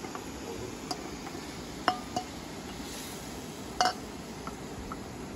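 Metal cooking-pan lid clinking against the pan and the metal dishes beside it: a few sharp, briefly ringing clinks, the two loudest about two seconds apart, over a steady hiss.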